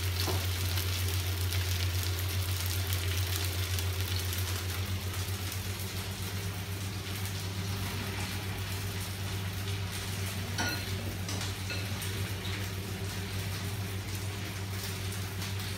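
Green-marinated fish pieces sizzling steadily as they shallow-fry in hot olive oil in a frying pan, over a steady low hum. A short clink about ten and a half seconds in.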